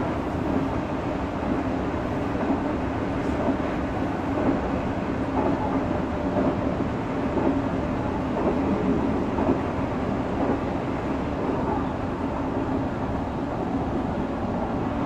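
Odakyu 3000-series electric train with fully enclosed traction motors running between stations, heard from inside the car: a steady rumble of wheels and running gear with a low, even hum.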